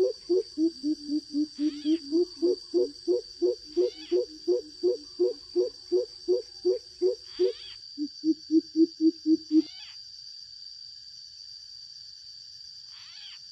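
Greater coucal (bìm bịp) calling: a long run of deep, evenly spaced hoots, about three a second and rising slightly in pitch, then a shorter, lower run of about seven quicker hoots that stops about ten seconds in. A steady high-pitched whine runs underneath, with a few brief high chirps.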